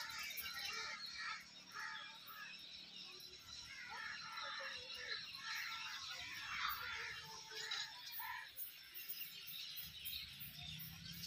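Faint outdoor ambience of scattered bird chirps with distant voices, thinning out about eight seconds in.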